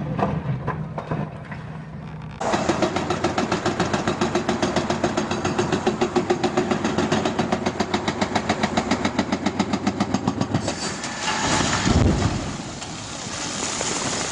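Excavator-mounted hydraulic breaker hammering rock in rapid, even blows, several a second, over the excavator's running engine. The hammering stops and, about twelve seconds in, a heavy low crash as the rock slab breaks and falls into the river, followed by the steady rush of water and spray. For the first two seconds a quieter rumble and clatter of demolition debris.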